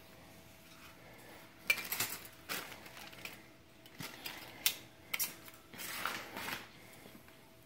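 Thin steel brake pad plates and shims being handled and fitted on a caliper: a series of sharp metallic clinks spread over several seconds, with a longer scrape about six seconds in.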